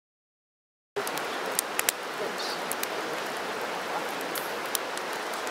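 Wood fire burning: a steady hiss with scattered sharp crackles and pops, coming in about a second in after a moment of silence.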